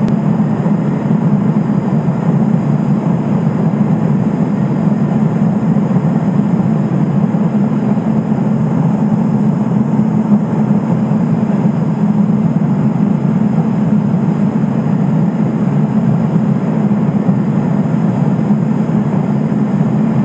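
Steady drone of the Cessna P210 Silver Eagle's Rolls-Royce 250 turboprop engine and propeller in flight, heard from inside the cockpit.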